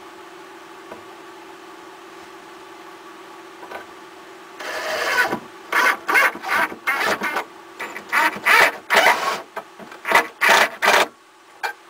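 A run of about a dozen short, rough scraping and rasping strokes, starting about five seconds in and stopping near the end, from work on a metal ceiling fan brace kit being fitted between attic joists.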